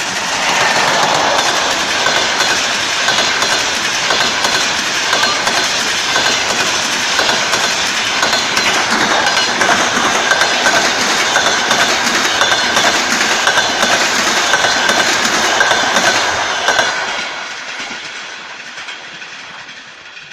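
Passenger coaches of an express train rushing past at speed: a steady rushing roar of steel wheels on rail with rapid clicking over the rail joints and a steady high-pitched whine. It fades away from about 17 seconds in as the tail of the train passes and recedes.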